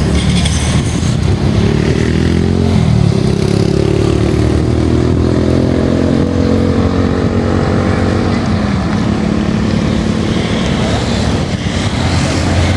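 Motorcycle engines running on the road below, their pitch rising and falling over several seconds as they rev and pass, over a steady rumble.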